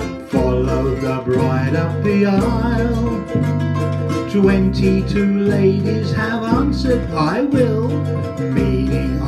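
Small group of ukuleles strummed together in a song, with a line of low held bass notes changing every second or so underneath.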